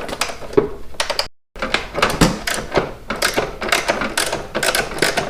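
Hand ratchet wrench clicking in quick strokes as a bolt on the motorcycle is worked loose, with a brief break in the sound about a second and a half in.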